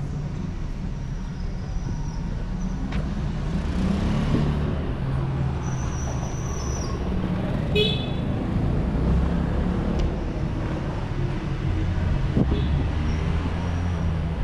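Street traffic ambience: vehicle engines running in a steady low rumble, with a short car-horn toot about eight seconds in.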